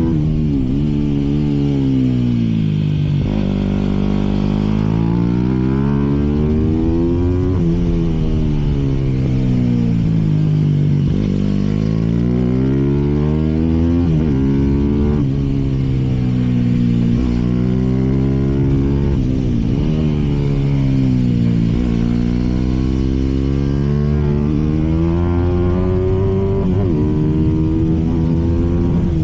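Aprilia RS 250 SP's two-stroke twin engine revving, its pitch rising and falling in slow, smooth sweeps again and again.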